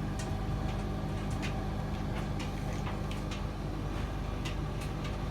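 Servis Caress M2010 tumble dryer running in its cool-down phase, blowing cold air: a steady motor and drum hum with irregular light clicks.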